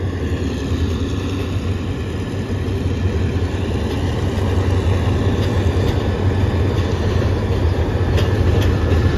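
Diesel-hauled long-distance passenger train moving through the station: the locomotive's diesel engine runs with a steady low drone over the rumble of the cars, slowly growing louder. A few sharp clicks near the end.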